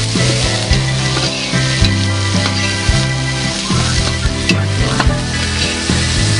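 Onions and thyme sizzling as they fry in oil in a large aluminium pot, stirred with a metal skimmer that knocks and scrapes against the pot now and then. Background music with a low bass line plays under the sizzle.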